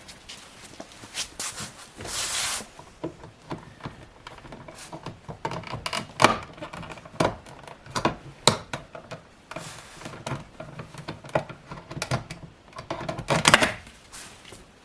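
Plastic door trim on a BMW E90 being pried off with a small plastic pry tool: an irregular run of sharp clicks and snaps with scraping, a longer scrape about two seconds in and a dense cluster of clicks near the end.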